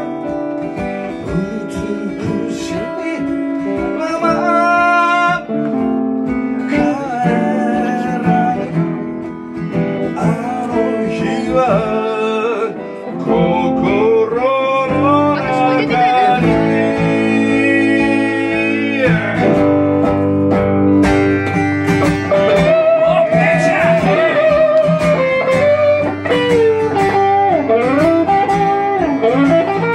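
A band playing a song: guitars with a singing voice over them, loud throughout.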